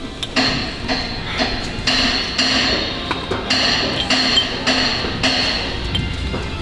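A hand tool working metal in a steady run of short strokes, about two a second, each with a metallic ring, stopping about five and a half seconds in.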